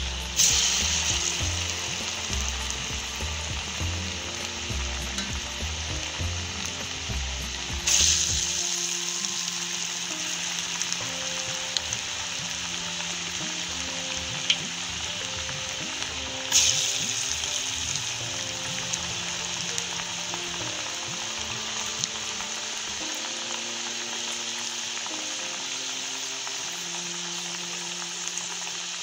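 Parippuvada (lentil fritters) deep-frying in hot oil in a steel kadai: a steady sizzle that surges sharply three times and settles back each time. The first surge comes as a vada is slipped into the oil.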